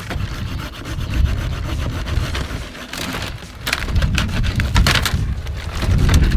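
Irregular rough scraping strokes over a low rumble.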